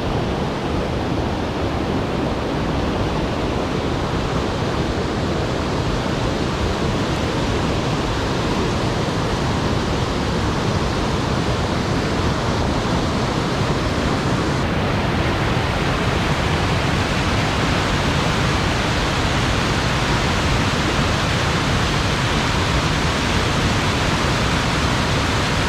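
Waterfall in powerful snowmelt flow: a loud, steady rush of falling water, with a slight change in tone about halfway through.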